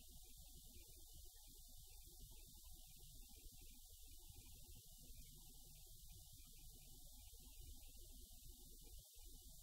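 Near silence: a faint low rumble and steady hiss, with no whistle, call or bark to be heard.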